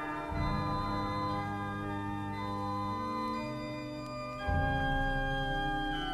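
Background music of sustained organ chords, with a chord change about half a second in and another, louder one about four and a half seconds in.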